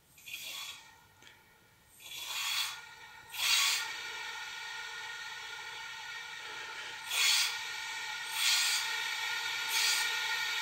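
Compressed air hissing through a tyre-inflator gun and hose into an OMC stern-drive lower unit, pressurising it for a leak test. It comes in short surges at first, then settles into a steady, slightly whistling hiss, with three louder swells near the end.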